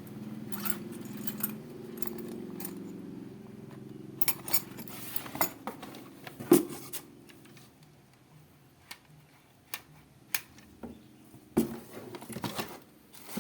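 Metal clinks and rattles of chainsaw accessories being handled, such as the saw chain and spark plug wrench, with scattered sharp knocks, the loudest about six and a half seconds in.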